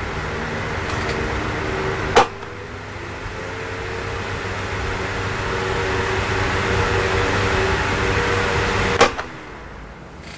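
Electric desk fan running with a steady whir and a low motor hum. Two sharp clicks come about 2 and 9 seconds in: after the first the fan's sound slowly swells, after the second it drops away to a quieter level.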